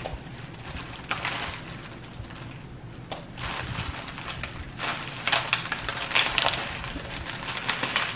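Plastic snack wrappers crinkling and rustling as packages are handled, in irregular bursts that are loudest around five to six and a half seconds in.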